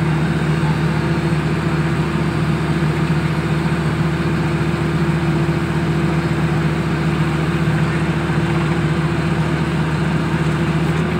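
Engine of a horizontal directional drilling rig running steadily, a constant low hum that holds the same pitch throughout.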